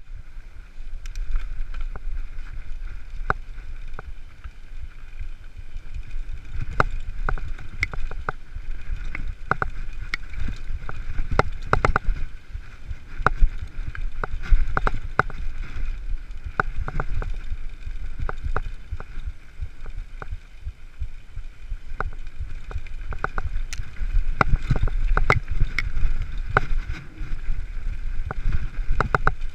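Mountain bike ridden fast down a dirt singletrack, picked up by a camera on the handlebars: a constant low rumble of tyres and wind on the microphone, with frequent sharp clicks and knocks as the bike rattles over roots and rocks.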